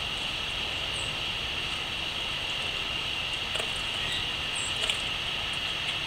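Steady, unbroken high drone of chirping crickets, with a few short, high bird chirps about a second in and again near the end.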